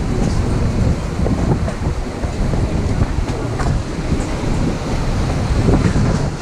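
Wind buffeting the microphone over the steady low rumble of a moving train, with a few faint clicks.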